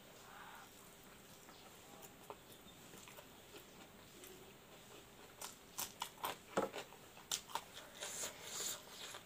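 Crisp biting and chewing of a raw long bean, close up. The sharp, irregular crunches start about halfway through after a quiet stretch.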